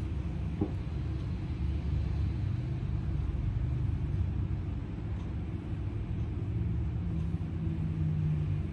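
Steady low background rumble, with a single faint click a little over half a second in and a low hum that swells near the end.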